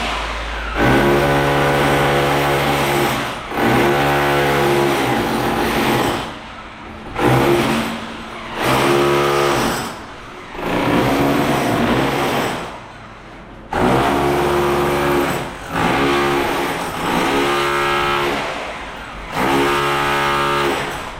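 A motorized power tool run in about nine bursts of one to two seconds each, each starting suddenly with a steady pitched hum.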